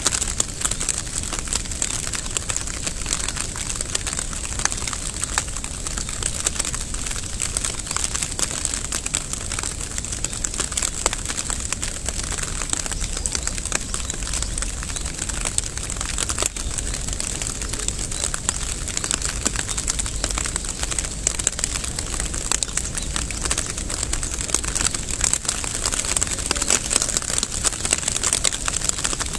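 Steady rain: a dense, unbroken patter of raindrops falling close by, with a constant high hiss.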